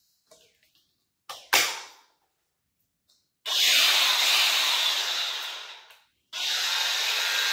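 DeWalt DCG410 cordless angle grinder running free with no load, twice. About three and a half seconds in it starts suddenly with a loud whir, runs about two seconds and winds down, then starts again about a second later. Before that come two sharp clicks.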